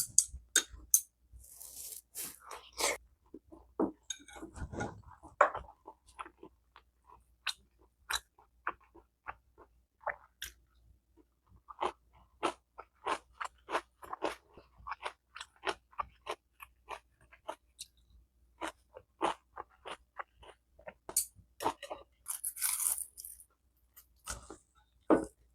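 A person chewing crunchy food close to the microphone: a steady run of short crunches and wet mouth clicks, a few a second. Twice, briefly, a high rustling hiss.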